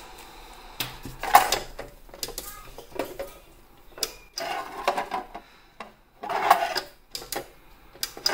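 Plastic drawer of a 5.25-inch computer bay drawer sliding in and out of its metal cabinet, in several separate bursts of scraping, knocks and clicks as it is handled and its push-to-open latch is worked.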